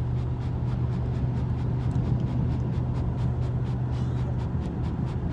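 Car interior noise while driving: a steady low engine and road drone, with a faint fast regular ticking over it.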